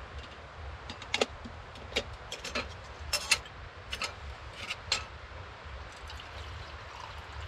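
Light metal clinks and taps from a small aluminium camping kettle, its lid and a metal cup knocking on a wire grate on top of a wood stove. There are about a dozen separate clinks, most of them in the first five seconds, over a low steady hum.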